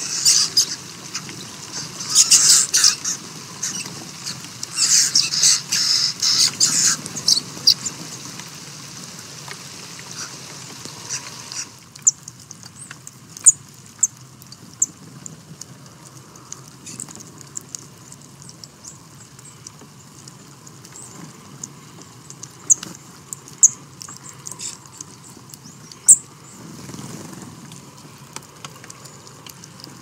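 Finches feeding at a tray of sunflower seeds: rapid clicking and crunching of pecked and cracked seeds. It is dense for about the first twelve seconds, then falls to scattered sharp ticks.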